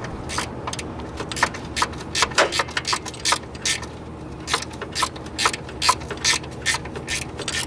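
Hand ratchet wrench clicking in short irregular runs, several clicks a second, while working bolts on the intake of a Chrysler 3.5 V6.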